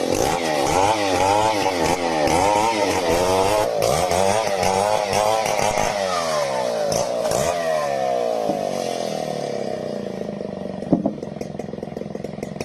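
Chainsaw running at high revs under load, its pitch rising and falling again and again as it cuts wood, then dropping lower for the last few seconds. A sharp knock sounds about eleven seconds in.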